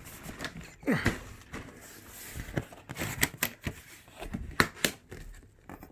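Large taped cardboard box being torn open by hand without scissors: tape and cardboard flaps ripping, creaking and scraping in irregular clicks and rustles.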